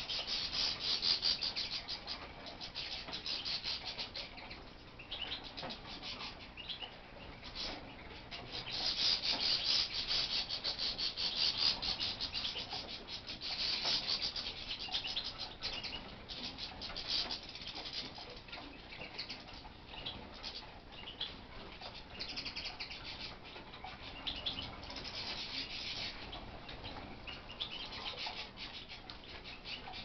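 A mixed group of small aviary finches chirping and twittering almost without pause, with louder, busier spells now and then.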